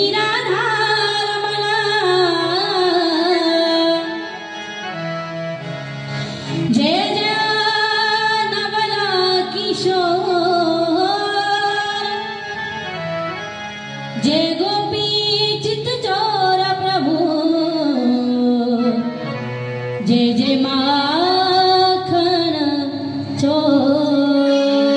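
A woman singing a devotional song into a microphone in long phrases that slide and ornament in pitch, over a harmonium holding steady notes beneath.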